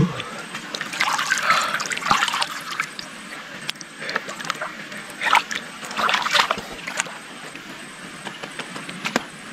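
Muddy pond water splashing and sloshing around a wading person's body and hands, in short bursts about a second in, again just after five seconds and around six seconds, with small drips and trickles between.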